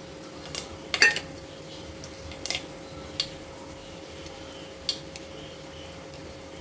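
Mustard and cumin seeds in hot oil and ghee in a kadhai, giving a handful of scattered sharp pops and crackles as the tempering heats, the loudest about a second in, over a faint steady hum.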